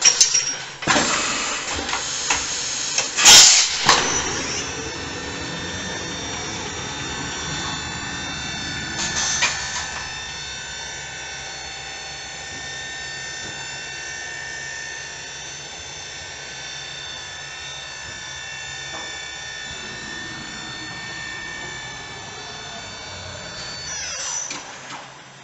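CNC vertical machining center running: loud knocks and a sharp burst in the first four seconds, then a steady high whine of several held tones that stops shortly before the end.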